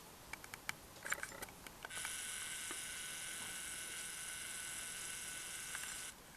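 Camera zoom motor whirring steadily for about four seconds, then stopping abruptly, after a few sharp handling clicks.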